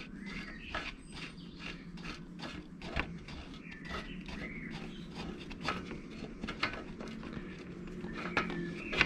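Small irregular clicks and taps of a hand unscrewing the oil-line ball-valve fitting from under a Velocette motorcycle's oil tank, over a steady low hum.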